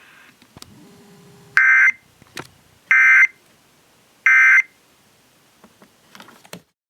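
Emergency Alert System SAME end-of-message data tones: three short, identical buzzy bursts of digital tones about a second apart, marking the end of the alert test.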